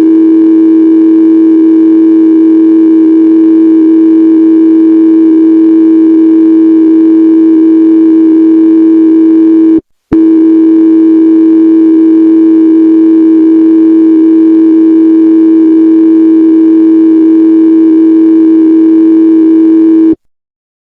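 Loud, steady, low synthesized emergency alert tone on a single pitch. It sounds for about ten seconds, cuts out for a moment, then sounds for about ten seconds more and stops.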